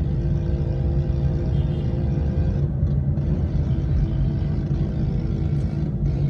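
Small motorbike engine running steadily under road and traffic rumble.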